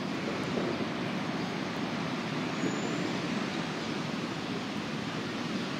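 Steady rushing noise of a wet city street in the rain, rain and traffic on the wet road blending into one even wash.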